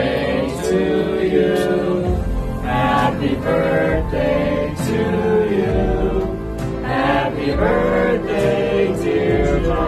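Background music: a song with choir-like singing over a steady bass line and a regular beat.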